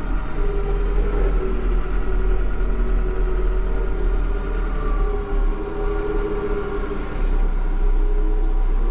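Yanmar YT359 tractor's diesel engine running steadily under way, heard from inside the closed cab.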